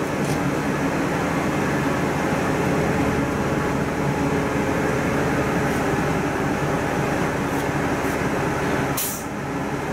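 Bus engine drone and road noise heard inside the moving bus, steady throughout, with a short hiss about nine seconds in.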